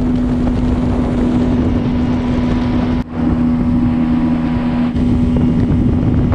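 Bass boat's outboard motor running at speed with a steady drone, under a rush of wind and water. The sound breaks off for an instant about three seconds in, then carries on.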